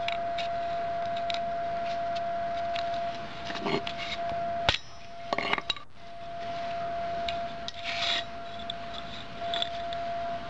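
Steel bicycle chain links clinking and scraping against a flat steel bike multi-tool as they are handled, with one sharp metallic click about halfway through. A steady faint high tone hums underneath and drops out briefly after the click.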